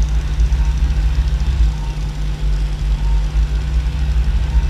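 Arthroscopic shaver running, a steady low motor hum, while torn tissue in the shoulder joint is debrided.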